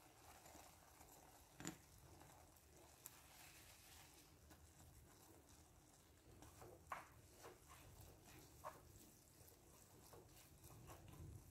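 Near silence, broken by a handful of faint, short taps and soft squishes as a wooden spoon pushes and separates instant noodles in water in a nonstick frying pan.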